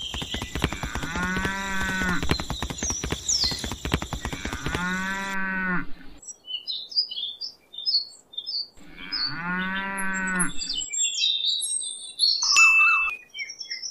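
Cows mooing three times, each moo a long low call of about a second. Small birds chirp between the moos, and a short loud sound comes near the end.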